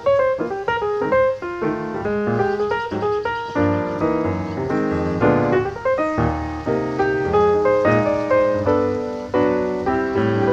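Background music: a piano playing a steady run of notes.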